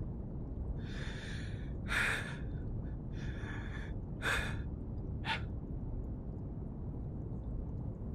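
A man's shaky, audible breathing: about five sharp breaths and gasps a second or so apart, the sound of someone in distress.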